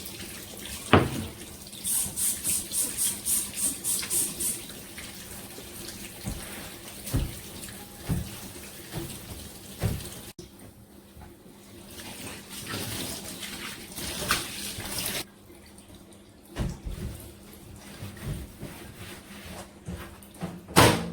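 Kitchen tap running into a sink during washing-up, with a quick run of scrubbing strokes, about four a second, a few seconds in, and scattered knocks of dishes. The water cuts off suddenly about three quarters of the way through, and a loud clatter comes near the end.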